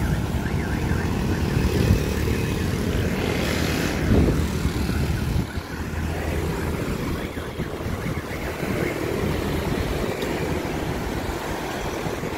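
Busy road traffic: motorbike and truck engines running with a steady low rumble, heard from a moving bicycle in the flow of traffic, with a louder surge about four seconds in.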